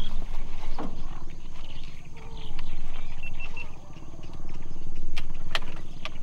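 Boat engine running at idle: a steady low drone that swells now and then. A few sharp clicks come near the end.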